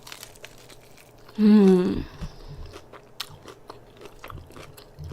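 Close-up crunching and chewing of fried chicken, with many small crisp cracks. About a second and a half in, a short hummed vocal sound like an 'mmm' is the loudest thing.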